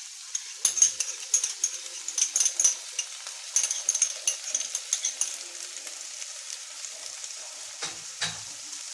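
Onions and bell peppers sizzling in oil in a frying pan while a spoon stirs and scrapes against the pan, with quick clicks for the first five seconds or so. The stirring then eases to a steady sizzle, with two knocks near the end.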